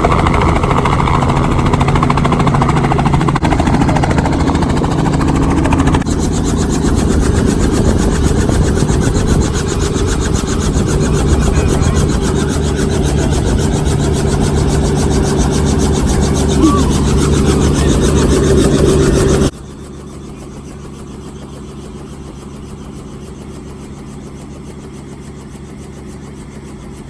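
Helicopter turbine and rotor noise, loud and steady with a fast, even beat. It drops abruptly to a much quieter steady hum about twenty seconds in.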